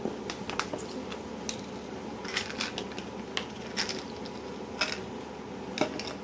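Irregular light clicks and taps of small objects being handled, over a steady low background hum.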